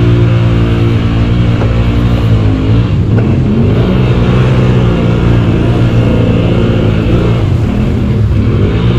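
ATV engine revving up and down as the quad churns through deep mud and water, its pitch rising and falling several times under load.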